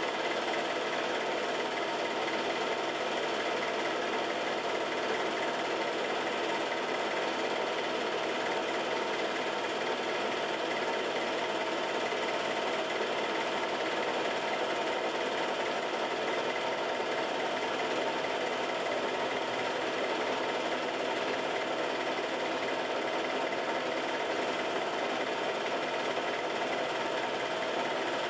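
Film projector running: a steady mechanical whirr and clatter that does not change.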